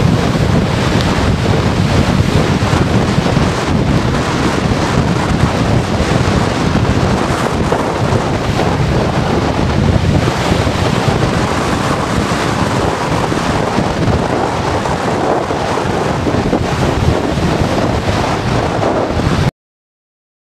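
Strong storm wind buffeting the microphone: a loud, dense rush of noise, heaviest in the low end, that cuts off suddenly near the end.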